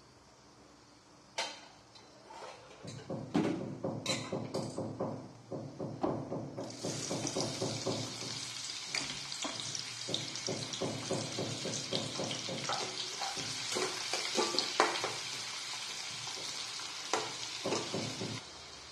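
Cumin and mustard seeds crackling in hot oil in a metal kadhai, then, about seven seconds in, chopped onions sizzling as they fry in the oil and are stirred with a spatula; the sizzle stops just before the end.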